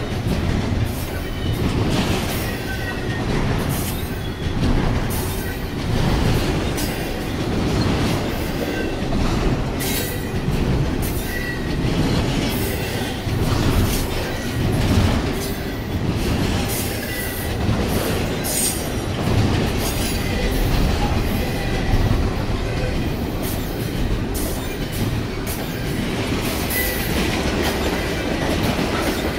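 Freight train of double-stack container cars and tank cars rolling past close by. It makes a steady rumble with wheels clacking over the rail joints, and brief high squeals now and then.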